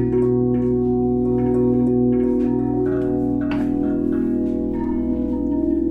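Tibetan singing bowls and gongs ringing together in sustained, overlapping steady tones, with light strikes and one clearer strike about three and a half seconds in.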